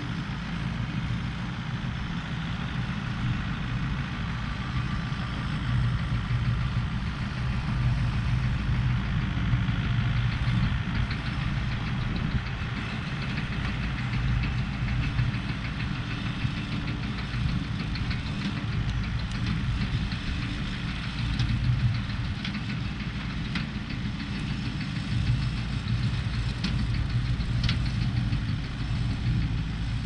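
Steady low engine drone.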